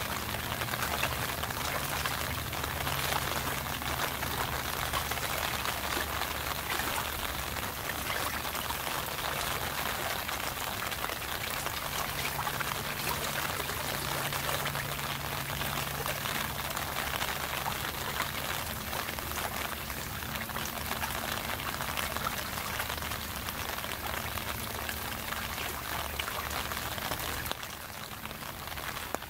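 Steady rain falling, a dense even patter of drops, dropping slightly in level near the end.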